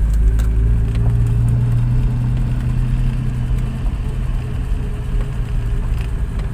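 Jaguar 420's 4.2-litre straight-six engine pulling in first gear at low speed, heard from inside the cabin as a steady low drone that grows a little stronger about a second in.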